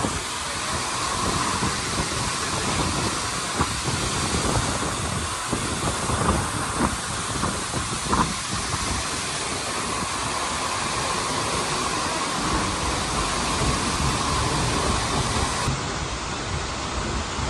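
Steady rushing of a large waterfall, Seljalandsfoss, heard close up, with a few faint knocks.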